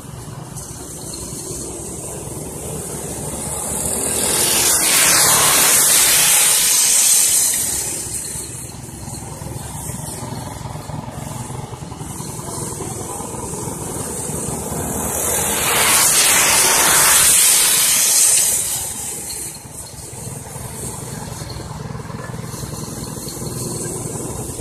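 Racing go-kart engines on a dirt oval: the karts run steadily in the distance and twice swell loud and fade as they pass close by, about eleven seconds apart, once each lap.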